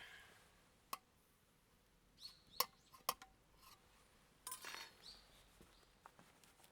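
A few sharp, separate clicks and clinks, with a short rattling burst about four and a half seconds in. Small birds chirp now and then in the background.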